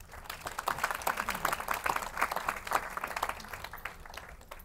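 Audience applauding: many hands clapping at once, swelling within the first second and dying away near the end.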